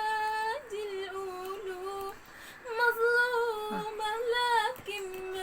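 Solo female voice singing an Arabic devotional nasheed unaccompanied, holding long drawn-out notes with wavering ornaments, in three sustained phrases with short breaths between them.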